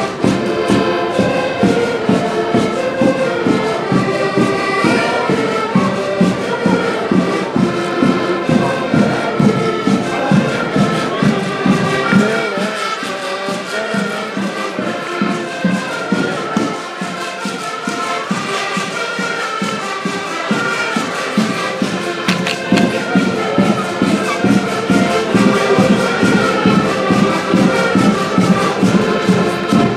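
Live street-band music: a traditional tune with a steady beat and a bright, reedy melody. The bass drops away for a stretch in the middle, then returns.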